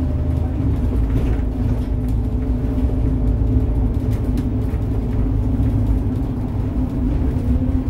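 Engine drone and road noise heard from inside a moving vehicle: a steady low rumble with a constant hum.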